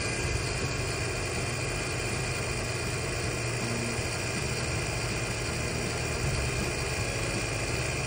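Electric linear actuator's motor and gearbox running steadily with a high whine as it draws its rod back out of the gate's latch bracket, unlocking the gate.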